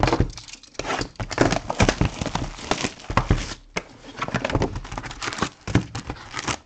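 Foil trading-card packs crinkling and rustling as they are handled and pulled from a cardboard box, with many small clicks and knocks, and a short pause a little before the middle.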